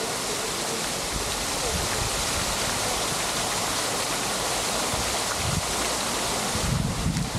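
Steady hiss of falling water, heard at street level. Near the end, gusts of wind buffet the microphone with low rumbles.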